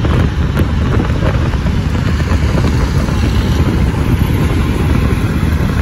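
Loud, steady vehicle road noise with a heavy low rumble and no clear engine pitch.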